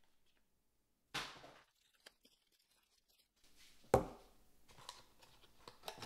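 Cardboard charger box being unboxed: a short tearing sound about a second in, then a sharp knock near four seconds followed by steady rustling and scraping as the packaging is opened and handled.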